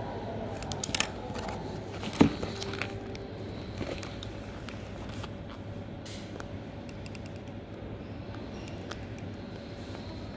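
Handling of a pen and a Tombow MONO correction tape dispenser on a paper notebook: scattered light plastic clicks and taps, with one sharper knock about two seconds in, and the tape being run across the paper. A steady low hum runs underneath.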